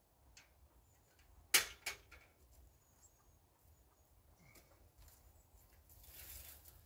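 Two sharp knocks a fraction of a second apart, the first the louder, over a quiet outdoor background. A soft rustling hiss follows near the end.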